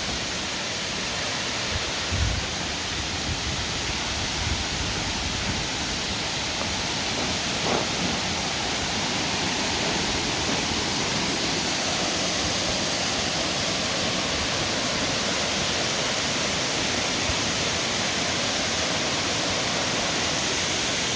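Steady rushing of a waterfall, an even noise that holds at one level throughout, with a low thump about two seconds in.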